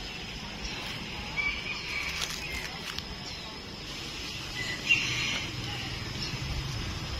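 Birds chirping in short calls, in two clusters: one about a second in and a louder one about five seconds in, over a faint steady background.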